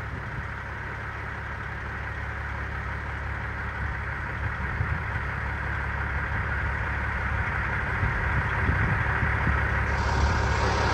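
Peterbilt 379 semi-truck's diesel engine running steadily at low revs, slowly getting louder.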